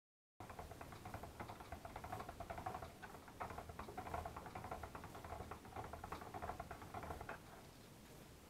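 Stick (immersion) blender running in a bowl of soap batter, a rapid churning patter over a steady motor tone. It is blending the batter toward a thick trace. It stops about seven seconds in.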